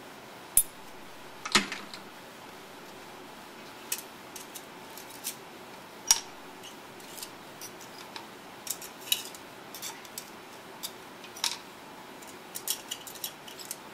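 Glass microscope slides clinking and tapping against a glass jar and plastic containers as they are handled and tipped across. There are scattered sharp clinks, a few louder ones in the first half, then a quicker run of small clicks toward the end.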